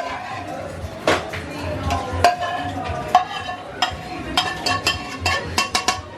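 Clatter of metal utensils, pots and dishes: a string of sharp ringing clinks that come thicker and faster toward the end, over a steady hiss of background noise.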